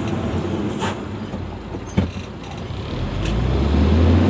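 Hino 500 truck's diesel engine running, heard from inside the cab, while a loaded log truck passes close the other way. A single sharp knock comes about two seconds in. Near the end the engine's deep rumble swells louder.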